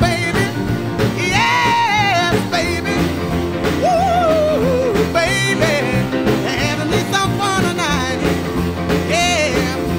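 Background music: a song with a singing voice over a band with a steady beat.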